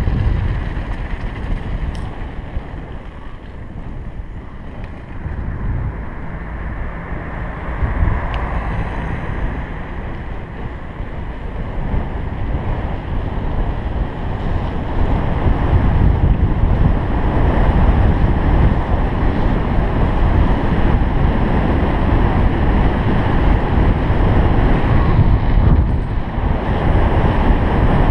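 Wind rushing over a GoPro Hero 3's microphone while riding a bike down the street, with bike tyre rumble over cobblestones and then asphalt. The rush gets louder from about halfway through and stays steady.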